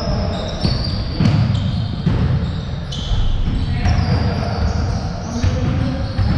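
Basketball bouncing on an indoor hardwood court during a game, with repeated sharp bounces and short high-pitched sneaker squeaks.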